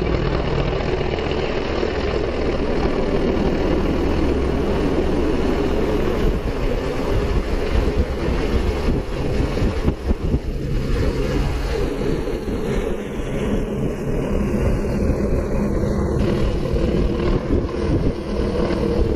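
Helicopter engine and rotor running steadily, a loud, even mechanical noise with a low steady hum underneath.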